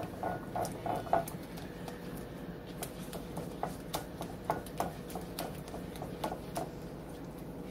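A spoon stirring a creamy dressing in a bowl, clinking against the bowl's side about twice a second with soft wet scraping in between.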